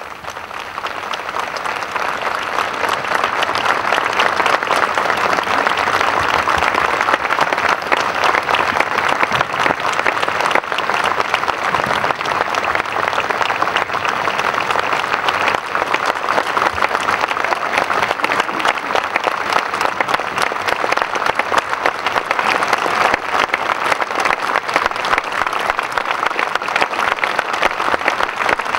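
Audience applause: a dense crowd of clapping that builds over the first few seconds and then holds steady.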